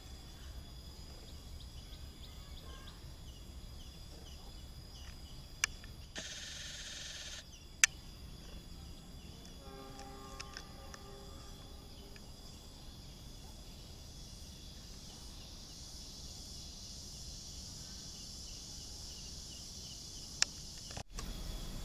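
Rural outdoor ambience of insects chirping steadily at a high pitch, with a few sharp clicks and some short calls.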